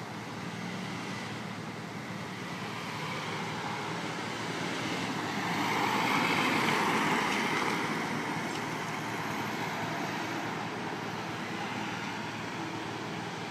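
Mercedes-Benz Sprinter ambulance driving past close by, its engine and tyre noise swelling to a peak about six seconds in and then fading, over steady street traffic. No siren is heard.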